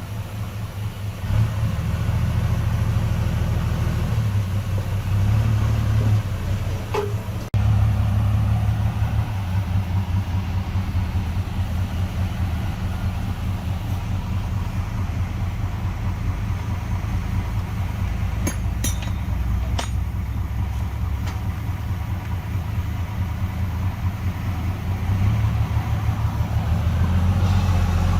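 Heavy diesel engine of earthmoving machinery running, its level swelling and easing as it works under load, with a short drop about seven seconds in. A few sharp clicks or clanks come through briefly in the middle.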